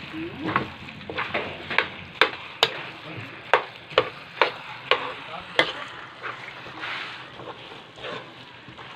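A utensil stirring and scraping thick glutinous-rice biko mixture in a metal pan, with sharp knocks on the pan about twice a second that thin out in the last few seconds, over the steady sizzle of the mixture cooking.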